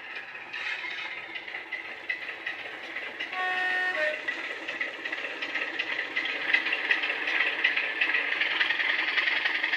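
Model Class 27 diesel locomotive's DCC sound decoder playing a Sulzer diesel engine sound through a small speaker, thin with no deep bass. About three and a half seconds in, the two-tone horn sounds: a longer high note, then a short low one. From about five seconds in the engine sound grows louder.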